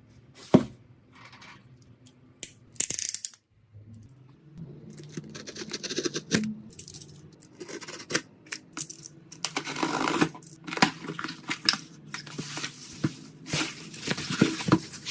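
Hands working on a broken smartphone with small tools: irregular clicks, taps and scraping of hard parts, with stretches of tearing and rustling that get busier partway through.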